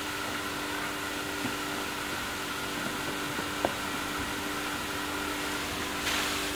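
Portable fire pump engine running steadily, driving water through a charged fire hose, which sprays from the nozzle with a steady hiss.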